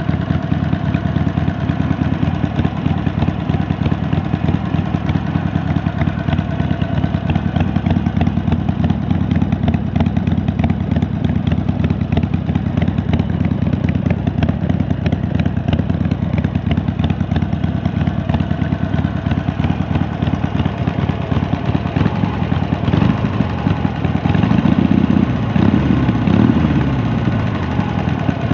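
Harley-Davidson Sportster V-twin with a Penzl exhaust idling with a steady, loping beat, then blipped up and back down a couple of times near the end.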